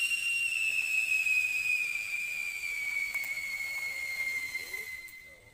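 Whistle-bomb firecracker whistling: one shrill tone that slowly falls in pitch and fades out near the end. This is the whistling stage that comes before the bang.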